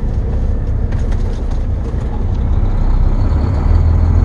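Steady low rumble of a semi truck's diesel engine and road noise heard inside the cab while driving, growing a little louder near the end.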